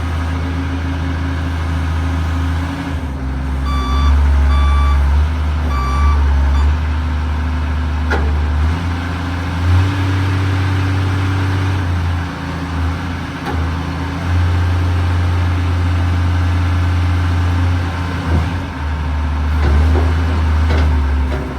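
John Deere excavator's diesel engine running, its low hum rising and easing every few seconds as the machine works. A travel alarm beeps three times about four seconds in.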